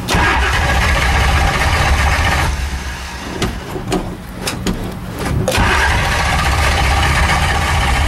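Shelby Daytona's engine being cranked on the starter without catching: a hard start after three months of sitting. There is a long crank, then a pause of about three seconds with several sharp clicks, then a second long crank.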